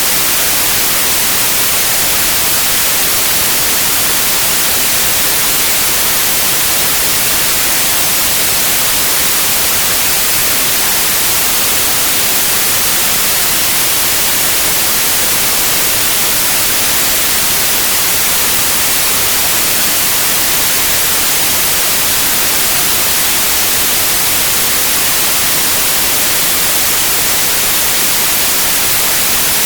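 Loud, steady white noise: an even hiss across the whole range, brightest in the highs, with no change.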